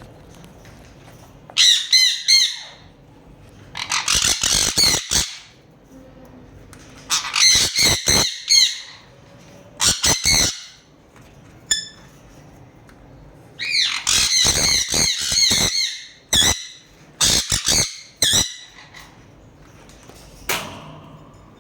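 Sun conure screeching: a run of loud, harsh squawks in bouts of up to about two seconds, separated by short pauses.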